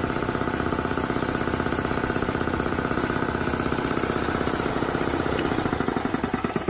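Electric-driven piston air compressor pump running, a loud rapid steady pulsing knock with a hum beneath it, fading near the end.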